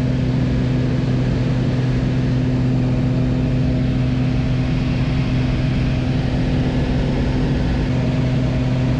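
Light high-wing plane's engine and propeller droning steadily in flight, heard from inside the cabin, holding an even pitch.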